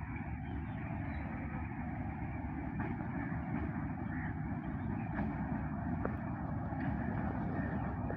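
Diesel locomotive running steadily at a distance as it comes slowly into the station on the loop line.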